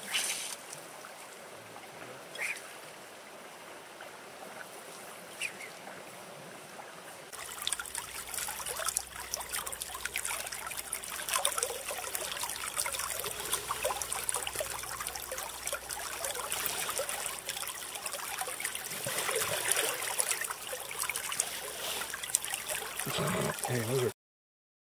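River water flowing over shallows: a steady wash for the first several seconds, then a louder, close rippling and trickling from about seven seconds in, cutting off abruptly near the end.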